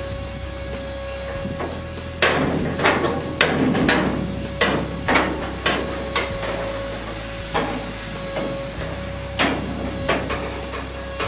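Irregular sharp metallic knocks and clanks from a steel smoker trailer as its hinged sheet-metal cover is raised and footsteps land on the steel-mesh deck: a quick run of about ten a couple of seconds in, then a few scattered ones.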